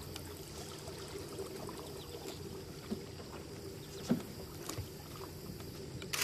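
A canoe being paddled on flat water: faint paddle strokes and drips, with a few soft knocks spaced a second or so apart.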